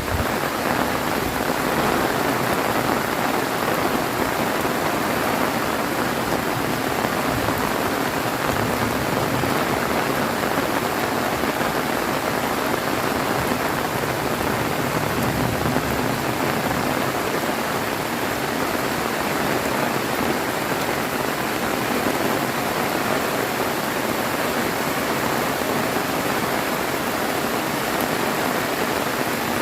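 Heavy rain pouring down steadily, a dense even hiss of rain hitting surfaces.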